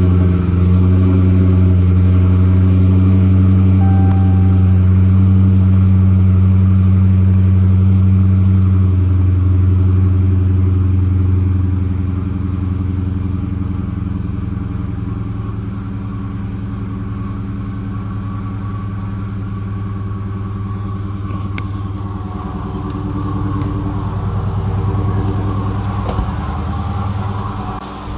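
6.4-litre Hemi V8 of a 2016 Chrysler 300 SRT idling steadily; its deep low drone weakens about twelve seconds in. The owner hears a raspy grinding on top of the usual Hemi tick and suspects a failing water pump or MDS lifters.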